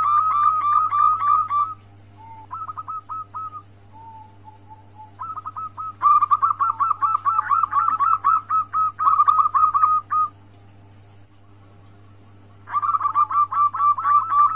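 Female zebra dove (perkutut) calling in bouts of rapid, staccato cooing notes, many a second: a call used to draw a male into breeding condition. The bouts stop about 2 s in, resume near 5 s, break again near 10 s and start up once more near the end.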